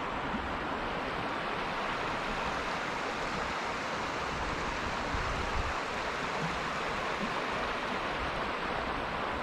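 Ashtabula River water flowing, a steady rushing sound.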